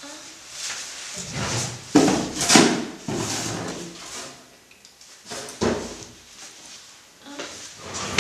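Several sharp knocks and thumps, a few seconds apart, the loudest right at the end.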